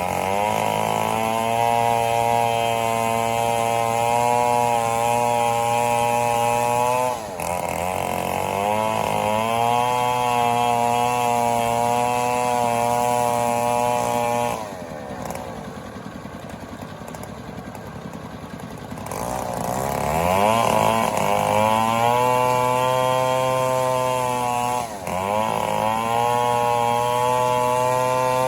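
Two-stroke chainsaw cutting mahogany wood, held at high revs. It briefly lets off the throttle twice. For a few seconds in the middle it drops to idle, then revs back up to full speed.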